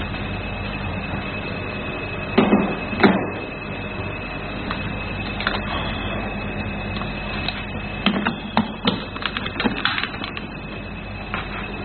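Plastic knocks and clicks as an IPL machine's handpiece connector is handled and pushed into its socket on the machine body: two loud knocks a few seconds in, then a quick run of clicks near the end. A steady hum runs underneath.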